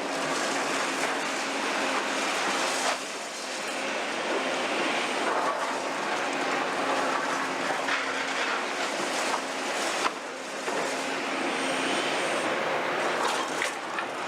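Caterpillar 352 excavator running steadily while its bucket works demolition rubble, with a sharp knock about three seconds in and another about ten seconds in.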